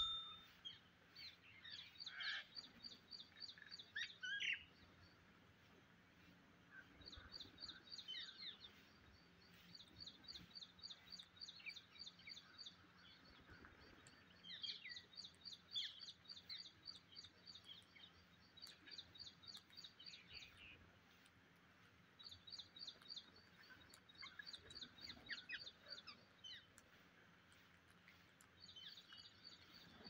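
Faint calls of rose-ringed parakeets: runs of rapid, high chirping notes, each run lasting a second or two, repeated with short pauses.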